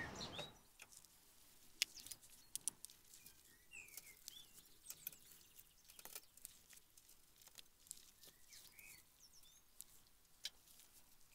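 Near silence with faint, irregular clicks from a lever-action grease gun pumping grease into a mini excavator's track tensioner cylinder to tighten the rubber track. A few faint bird chirps.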